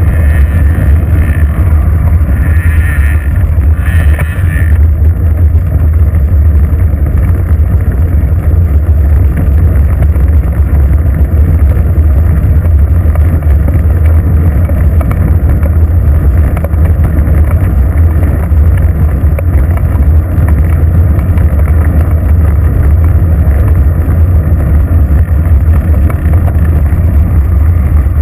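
Steady, loud low rumble of wind and road vibration on a bicycle-mounted GoPro camera while riding.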